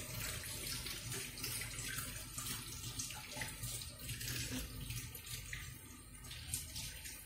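Kitchen tap running into a stainless steel sink while salted fish are rinsed under it by hand, with small irregular splashes and wet handling. This is the rinse that washes the salt cure off the fish.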